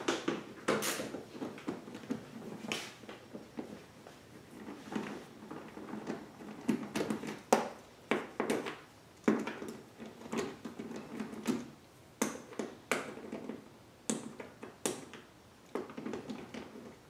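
Irregular clicks, taps and knocks of a hand tool and hands working on a generator's plastic side cover as its small bolts are removed and the cover is worked loose.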